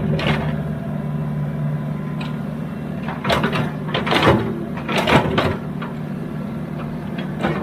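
Excavator's diesel engine running steadily, with a cluster of sharp clanks and knocks from its working gear in the middle and one more near the end.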